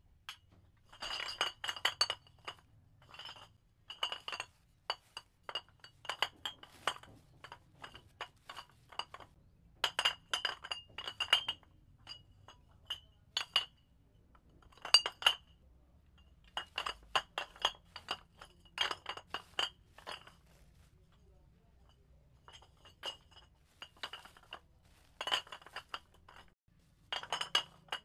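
Empty glass bottles clinking against one another as they are put into a sack. The clinks come in irregular clusters, each with a short bright ring, separated by brief pauses.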